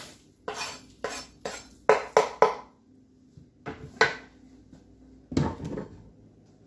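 Kitchen clatter of a wooden cutting board and chef's knife against a metal sheet pan as chopped pecans are knocked off the board: about six sharp knocks in the first two and a half seconds, the last three in quick succession, two more taps around four seconds in, and a heavier knock near the end.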